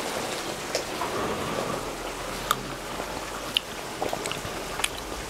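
Rice and rockfish stock simmering in a paella pan: a steady hiss of bubbling with small pops here and there.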